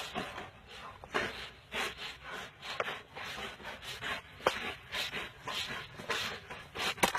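Two pit bulls hanging by their jaws from a rope-hung tire swing, with a rhythmic rasping of about one to two strokes a second.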